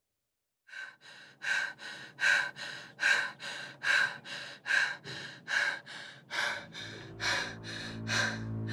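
A person breathing hard and fast, loud breaths alternating with softer ones in a steady rhythm of roughly one pair per second. A low droning music tone fades in during the second half.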